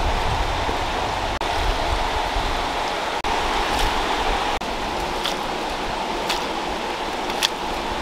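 River water rushing steadily, breaking off for an instant three times. A few faint light taps come through in the second half.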